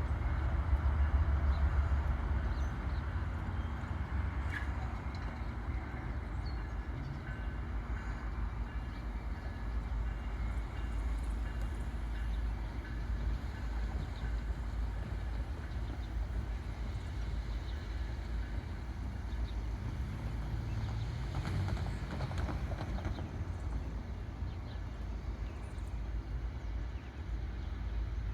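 MARC commuter train running, a steady low rumble with a few faint light clicks.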